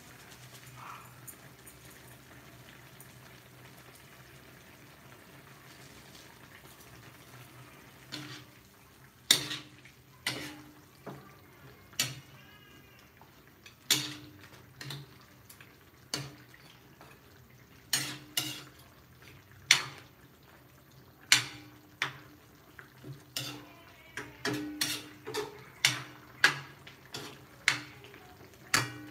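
Metal ladle stirring chicken curry in a large metal pan, clinking and knocking against the pan's side and rim in irregular strokes about once or twice a second, starting about eight seconds in.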